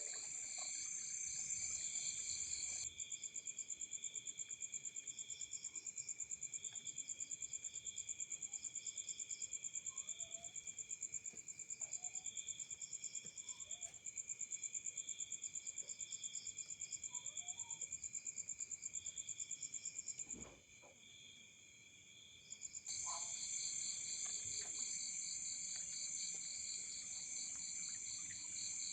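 Forest insect chorus of crickets and other insects trilling steadily at several pitches at once. The highest, fast-pulsing trill stops about 20 seconds in and starts again a couple of seconds later. Faint short chirps sound underneath.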